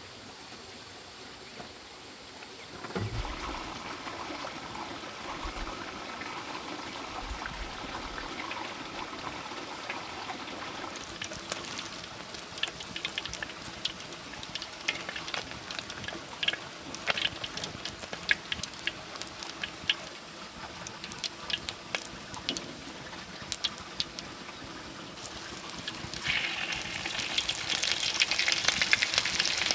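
Food cooking in a pan: liquid bubbling steadily, with crackles and pops that grow busier and build into a louder frying sizzle near the end.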